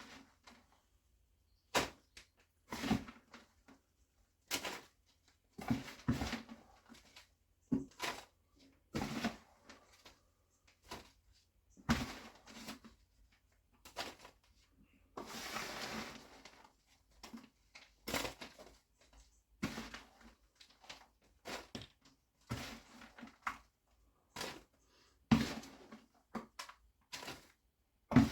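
Damp hardwood sawdust and bran mix being scooped into a mushroom grow bag: a series of short rustles and soft thumps about every second or so, with one longer rustle about halfway through.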